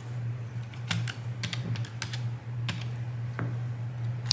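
Irregular light clicks and taps from hands working at a desk, over a steady low hum.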